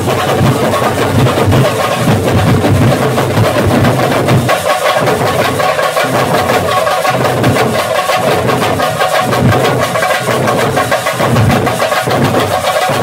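A troupe of drummers playing large shoulder-slung drums with sticks, all together in a loud, fast, dense rhythm of low thuds and sharp strokes.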